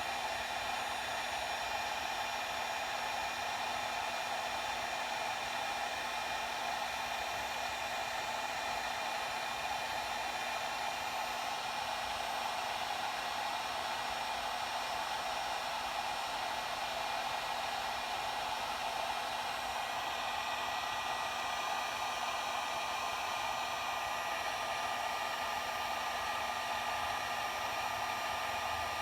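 Heat gun blowing steadily while heating heat-shrink insulation on a crimped wire connector to shrink it over the wire. Its tone shifts slightly about two-thirds of the way through.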